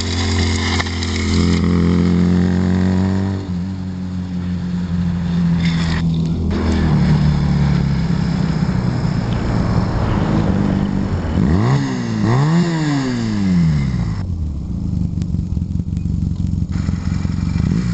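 Honda Rebel 250's parallel-twin engine running as the bike leans through tight turns, with the titanium knee slider scraping on the asphalt in the first second or so. About twelve seconds in, the engine is revved up and down twice in quick succession.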